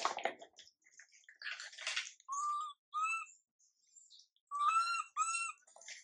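Baby long-tailed macaque crying: short, high-pitched, whistly coo calls that rise and fall, about four of them in two pairs, mixed with a couple of harsher, raspier cries near the start. These are an infant's distress calls for its mother.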